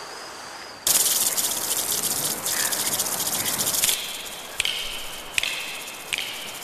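Insects chirring: a loud, high, even buzz starts suddenly about a second in and holds for about three seconds, then gives way to softer repeated chirps about every three-quarters of a second.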